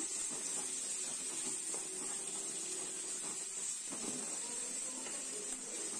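Sliced onions and curry leaves frying in hot oil in a kadai: a steady soft sizzle, with a wooden spatula stirring and scraping a few times.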